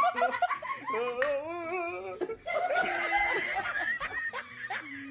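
People laughing, in wavering, breaking peals.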